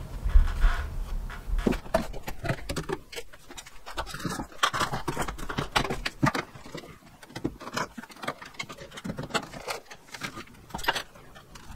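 Scattered light clicks and knocks of PVC drain pipe and fittings being handled and pushed into place overhead.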